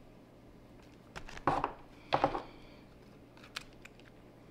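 Hands handling a potted begonia cutting and its potting soil: two short rustling scrapes about one and two seconds in, then a couple of faint clicks.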